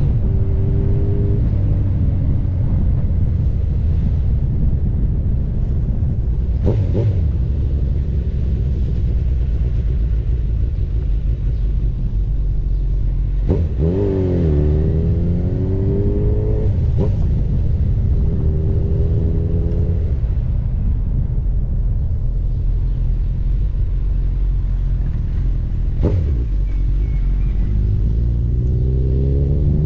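Honda CB1000R's inline-four engine running, its pitch falling and rising with the revs and climbing steadily near the end, over a steady low rumble. A few brief sharp knocks come through, about four times.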